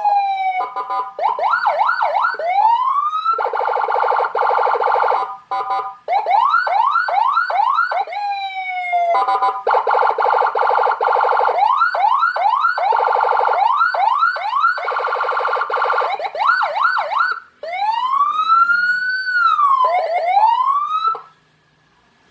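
Electronic police siren module with Whelen-style tones, switched through several tones: fast repeated rising whoops, a harsh steady buzzing horn tone in several stretches, and a slow rising and falling wail near the end. It cuts off about a second before the end.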